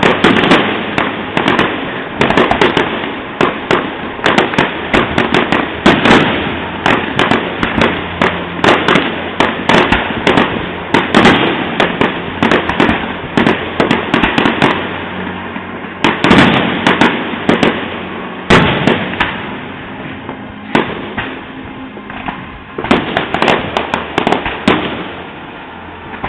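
Fireworks going off in a dense, continuous barrage of bangs and crackling, with the sharpest reports standing out every second or so, heard from a distance.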